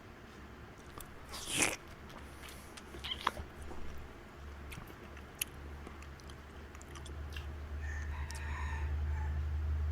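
Close-up eating of instant fried noodles: biting and chewing with small clicks, and one louder noisy burst about a second and a half in. A low hum grows louder toward the end.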